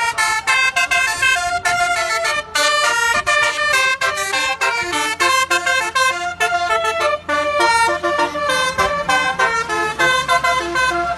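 Telolet bus horn: a multi-tone horn playing a quick melody of short notes. A low engine hum runs underneath, stronger in the second half.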